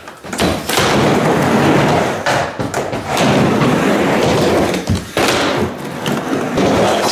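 Skateboard wheels rolling over a wooden mini ramp as the rider carves back and forth, with thuds as the board comes down on the plywood and a sharp knock about five seconds in.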